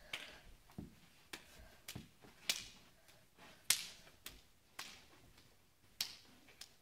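Hands and forearms slapping against each other in a fast knife-defence parrying drill: a string of sharp, irregular smacks, the loudest two about two and a half and three and a half seconds in.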